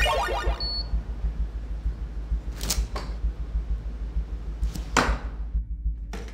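An electric crackling zap sound effect as the arc flashes over the gloved gadget, then a few sharp knocks or footfalls, the loudest about five seconds in, over a low rumbling drone.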